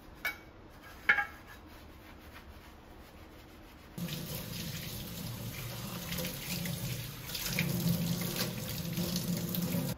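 Kitchen tap water running onto a small tamagoyaki pan in a stainless steel sink, rinsing off the detergent suds; the flow starts suddenly about four seconds in. Before that, two brief knocks as the pan is scrubbed with a brush.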